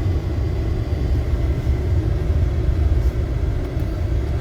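A car driving, heard from inside the cabin: a steady low road and engine rumble.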